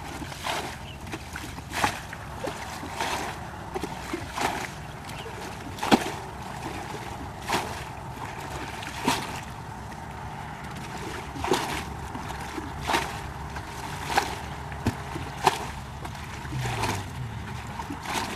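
Muddy ditch water bailed with a plastic bucket: each scoop is flung out with a splash, about one every second and a half, draining the ditch to get at the fish.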